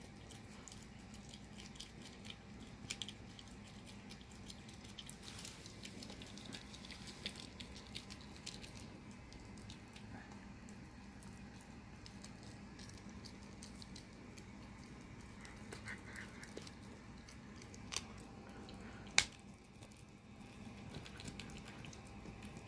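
Italian greyhound gnawing a bully stick held in a person's hand: faint, scattered wet chewing and small tooth clicks. Late on come two sharper clicks about a second apart.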